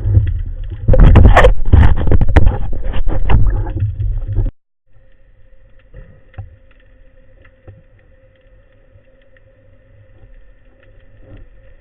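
Water rushing and bubbling loudly against an underwater camera for about three and a half seconds. It cuts off suddenly, and a quiet underwater background follows, with a faint steady hum and scattered small clicks.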